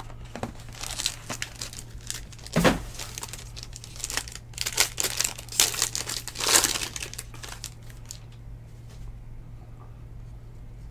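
Plastic trading-card pack wrapper crinkling and being torn open by hand, in a string of crackly bursts, the loudest about two and a half seconds in. It settles down after about eight seconds.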